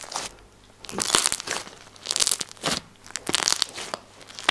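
Borax-activated homemade slime being stretched, pulled and squeezed by hand, giving about three bursts of crackling, popping clicks with quieter gaps between them.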